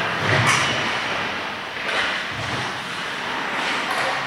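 Ice hockey play along the rink boards: players' bodies and sticks knock against the boards, a sharp knock about half a second in and a duller thud a couple of seconds later, over a steady hiss of skates on ice.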